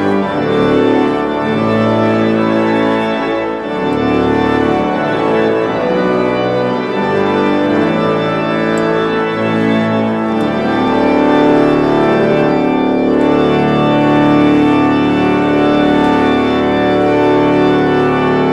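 Church pipe organ playing full, sustained chords that change every second or so.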